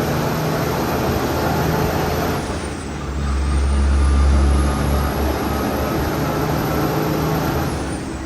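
Cummins X15 diesel engine of a loaded Kenworth T800 truck running under way. Its note changes twice, about two and a half seconds in and near the end, with a short dip in loudness each time.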